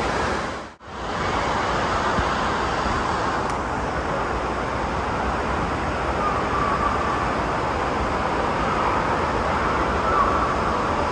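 Steady roar of an indoor water park: water pouring and spraying from a splash play structure, mixed with a hubbub of voices echoing in the hall. The sound drops out briefly about a second in.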